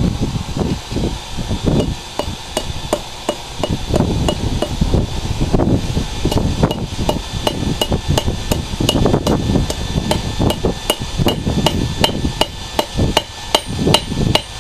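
Hand hammer striking a railroad spike on an anvil as a knife is forged, in a fast steady rhythm of about three blows a second. Each blow rings with a short metallic ping, and there is a brief pause about five seconds in.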